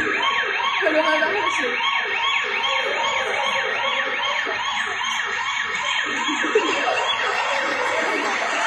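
Ambulance siren sound effect: a rapid rising-and-falling wail repeating about two to three times a second, played over loudspeakers.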